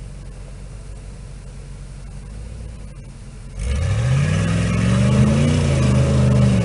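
Jeep J-10 pickup's V8 with open headers idling low, then, a little past halfway, revved up sharply. Its pitch climbs and holds high, then starts to drop near the end.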